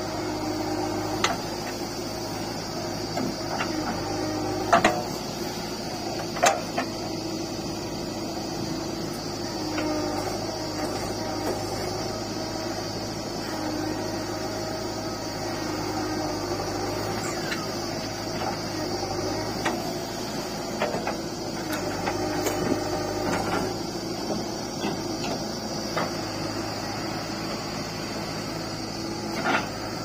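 JCB 3DX backhoe loader's diesel engine running steadily while its backhoe hydraulics dig and swing soil, with a few sharp clanks from the bucket and arm.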